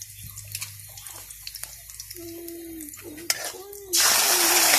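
Chopped garlic and onion crackling softly in a hot metal pan, then, about four seconds in, a sudden loud steady sizzle as canned sardines are tipped into the hot oil.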